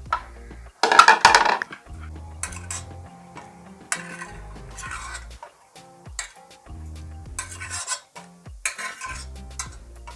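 Metal utensil clattering and scraping against a cooking pot in several short bursts, the loudest about a second in, as boiled garden eggs, pepper and tomatoes are taken out. Soft background music runs underneath.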